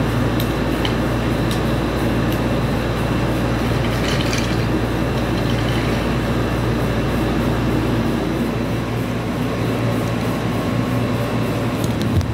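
A battery-powered toy train engine running on wooden track: a steady motor whir with a few faint clicks.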